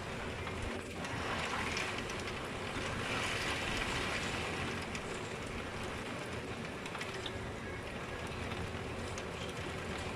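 Steady rush of heavy typhoon rain and wind, with faint scattered ticks of drops; it swells a little a few seconds in.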